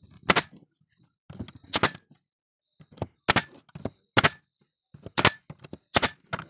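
Nail gun firing brads into small wooden blocks: about six sharp shots, roughly one a second, with lighter clicks and knocks between them as the tool is repositioned.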